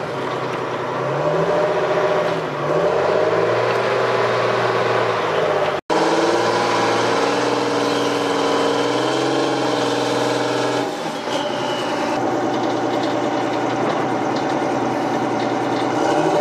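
TLAV tracked armoured vehicle's diesel engine running, revving up and down over the first few seconds while it tows a dead vehicle. The sound breaks off for an instant about six seconds in, then an engine runs on steadily.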